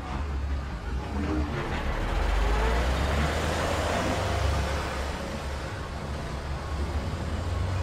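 Heavy truck driving past with a low engine rumble that swells to its loudest about three seconds in, then eases off.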